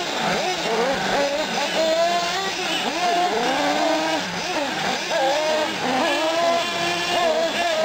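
Several nitro-powered 1/8-scale RC trucks and buggies racing, their small glow-fuel engines revving up and falling away again and again as they accelerate and brake around the track, the engine notes overlapping.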